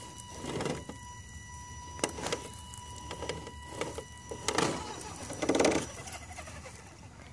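Axial SCX10 RC crawler's electric motor and gears whining as it crawls over a dirt mound, with several short bursts of tyres scrabbling and crunching dirt.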